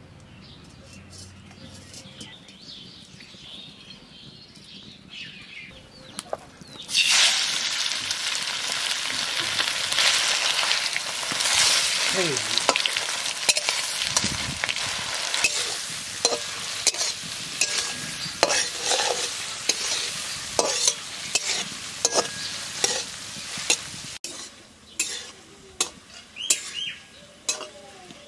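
Chicken pieces going into hot oil in a steel karahi: a loud sizzle starts suddenly about seven seconds in and carries on, with a metal spatula clinking and scraping against the pan as it is stirred. Near the end the sizzle has dropped away and the spatula's taps on the pan stand out.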